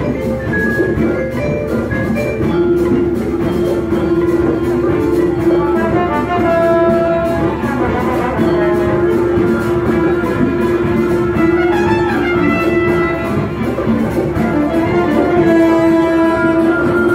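Live orchestra of strings and brass playing a jazz-fusion tune, a long brass-and-string note held over a steady rhythmic pulse.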